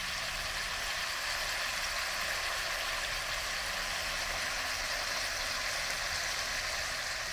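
Beef rouladen searing in hot clarified butter in a cast-iron Dutch oven: a steady, even sizzle of meat frying hard.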